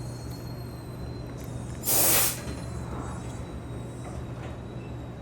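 A short hissing blast from a pressurized spray jet, about half a second long and about two seconds in, over a steady low hum.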